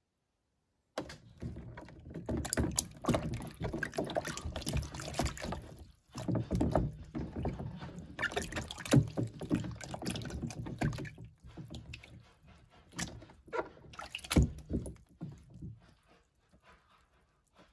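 Hands sloshing water and rubbing dried shiitake mushrooms soaking in a plastic basin. The irregular splashing starts about a second in, pauses briefly twice and dies down near the end.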